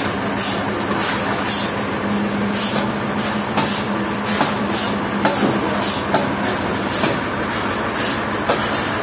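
Sawmill running as it saws a trembesi log: a steady mechanical din over a constant low hum, with quick high hissing pulses about twice a second.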